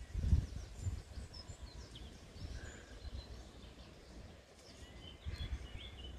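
Small birds chirping now and then over a low, gusty rumble of wind on the microphone, which swells again about five seconds in.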